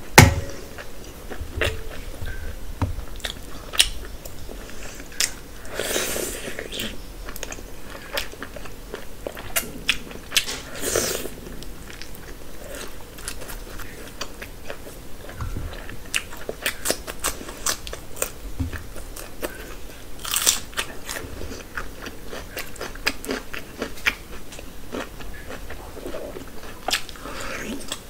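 Close-miked eating: biting and chewing puri and curried meat by hand, with crunching and many small wet mouth clicks, and a few louder bites standing out every several seconds.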